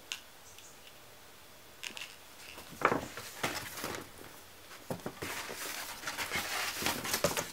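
Rustling and crinkling of a paper gift bag and packaging being rummaged through, with a few light clicks and knocks. It starts about two seconds in and is busiest in the second half.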